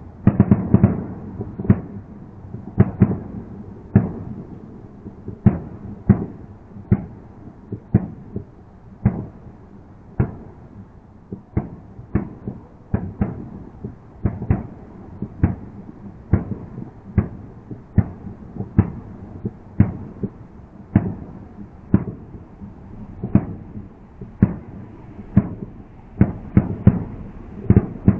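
Aerial fireworks going off in a long, uneven series of sharp bangs, about one or two a second and sometimes in quick pairs, each followed by a short echo. The sound is thin and dull, as heard through a security camera's microphone.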